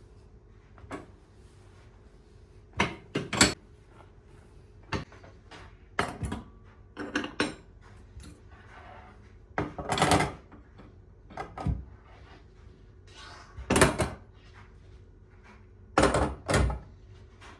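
Kitchen work sounds: a series of irregular knocks and clatters as utensils and dishes are handled and set down, with brief rustling between them. The loudest knocks come about ten and fourteen seconds in.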